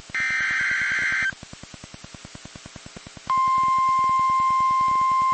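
NOAA Weather Radio alert signalling: a burst of SAME header data tones about a second long, then after a two-second pause the steady 1050 Hz warning alarm tone comes on and holds, signalling that a warning message follows. A faint fast ticking runs underneath.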